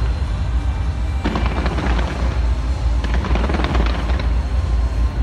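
Fireworks going off: a constant deep rumble of bursts, with dense crackling about a second in and again around three to four seconds in.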